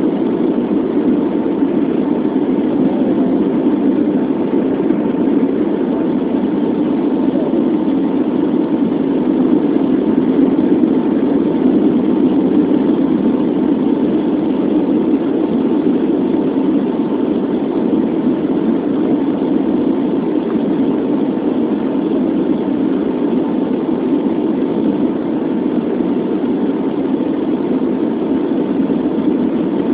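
Steady rushing noise of an airliner cabin in flight, engine and airflow noise without change, with a faint constant whine running through it.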